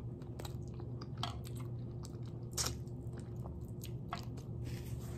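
Close-up chewing and sucking on adobo chicken feet, with a few sharp, wet mouth clicks spaced out over a steady low hum.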